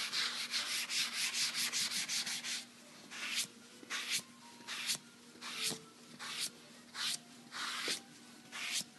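Sponge damp with leather sealer rubbed over a leather chair arm: quick, closely packed rubbing strokes for the first couple of seconds, then slower separate strokes, about one every half second to second.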